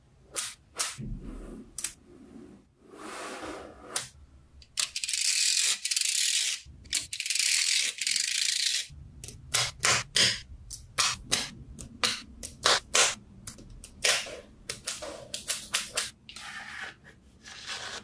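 Small neodymium magnetic balls clicking sharply as they snap onto each other and are pressed into panels by hand, the clicks coming singly and in quick runs. About five seconds in comes a dense rattling hiss lasting about four seconds, as many balls shift against each other at once.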